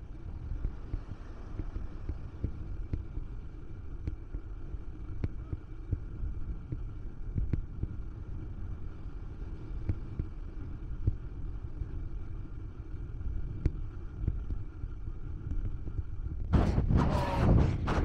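Wind rumbling on the camera microphone while walking along a sandy beach with the surf close by, over a faint steady whine. About a second and a half before the end a much louder gust of wind hits the microphone.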